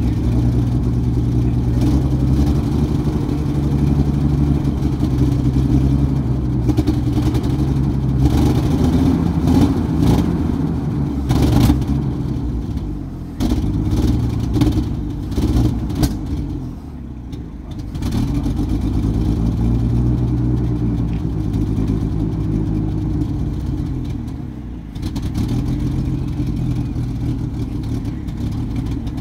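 Military half-track's engine running on its first start and being revved up and down several times, with a few sharp knocks about halfway through.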